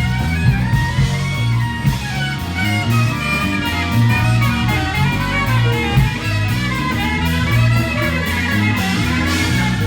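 Live band playing: a prominent bass line under a steady beat of cymbal ticks, with a melodic lead line on top.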